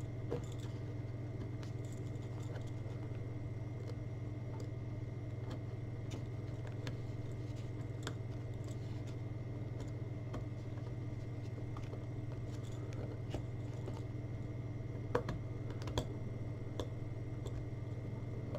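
Faint scattered clicks and small scrapes of hands working at a headphone earcup, with a few sharper clicks near the end, over a steady low hum.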